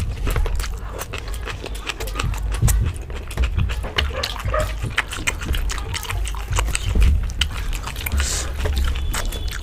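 People eating chole bhature: wet chewing and lip-smacking over a dense run of small clicks, with squelches as fried bhatura is torn and dipped in chickpea curry.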